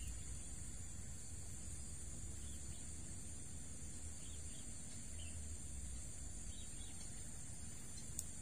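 Steady, high-pitched drone of insects, with a few faint bird chirps over a low rumble. There is a single brief tick near the end.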